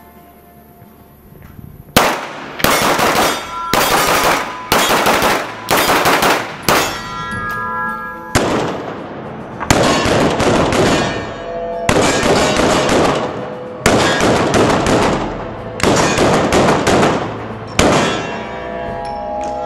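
Semi-automatic pistol fired about a dozen times in an indoor range, each shot echoing. The first seven or so come quickly, about 0.7 s apart, and the rest follow more slowly, about every two seconds.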